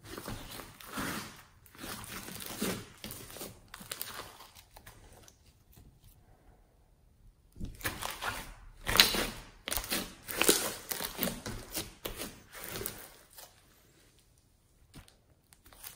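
Hands squishing, folding and stretching blue floam slime full of small foam beads, giving irregular crackling and squelching. It goes nearly quiet about five seconds in, then the crackling comes back louder and denser for several seconds before easing off near the end.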